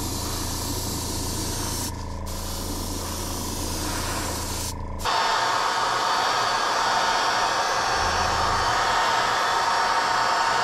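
Airbrush spraying paint onto a wooden lure, a steady hiss with the air compressor humming underneath, briefly let off twice. About five seconds in, a louder, steady rush of air takes over.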